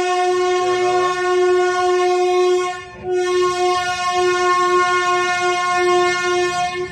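Train horn sounding in long, steady blasts on a single note: one blast breaks off about three seconds in, and a second blast runs until it stops just before the end.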